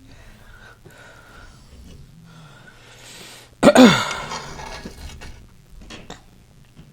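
A woman's loud, sudden throaty outburst about halfway through, falling in pitch and trailing off over about a second. It is the kind of burp, cough or sneeze that comes while eating.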